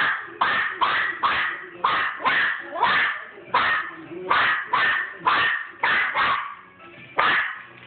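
Small dog barking over and over, about two short sharp barks a second, with a brief pause about seven seconds in.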